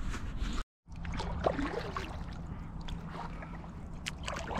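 Small boat moving across calm water: water trickling and lapping against the hull, with scattered small splashes and a faint steady low hum. The sound cuts out briefly just under a second in.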